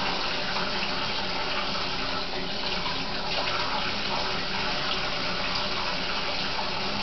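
Bathroom sink tap running steadily while hair is being wetted at the sink.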